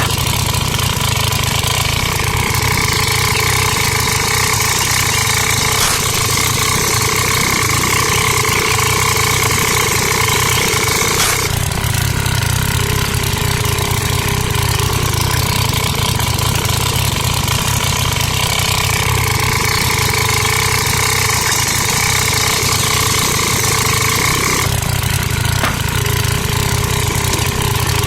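A small engine running steadily at idle, with a steady whine above its low rumble; the sound shifts slightly about 11 seconds in and again near 25 seconds.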